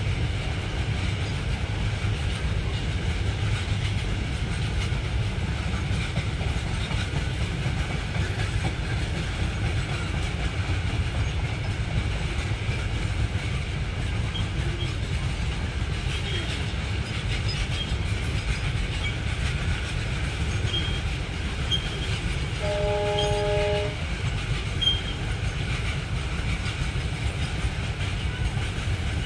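Indian Railways freight train of covered goods wagons rolling past at steady speed, with a continuous low rumble of wheels on the rails. About 23 seconds in, a horn sounds once for about a second as a steady chord.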